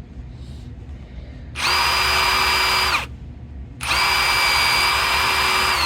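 Power drill running in two bursts, about a second and a half and then two seconds, each at a steady speed, spinning a rusty socket to scrub the rust off.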